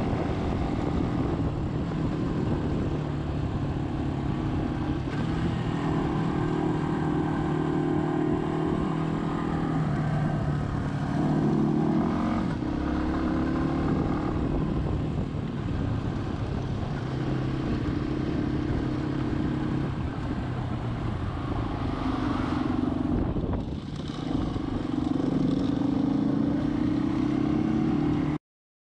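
Motorcycle engine running under way, heard from on board the bike, over a steady rush of road noise. The engine pitch rises around the middle and dips briefly about two-thirds of the way through as the throttle changes.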